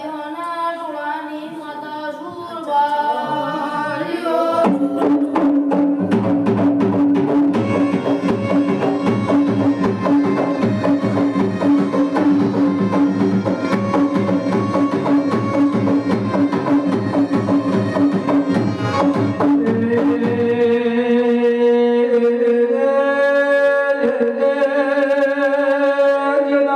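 Devotional folk music: singing over drums, then from about five seconds in a long passage of fast, dense drumming under a steady held note, with singing coming back in at about twenty seconds.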